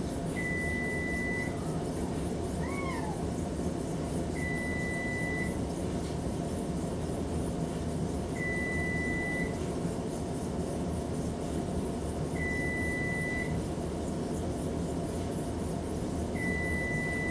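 Oven timer beeping: a steady high electronic tone about a second long, repeating every four seconds, five times. About three seconds in, a Maine Coon cat gives one short squeaky meow that rises and falls in pitch.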